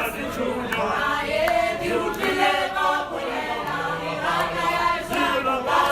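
A choir of several voices singing together, with a sharp beat about every three-quarters of a second.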